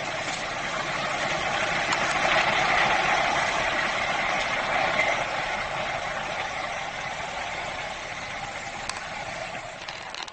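A passing train: a steady rolling rush that swells about two seconds in and slowly fades away.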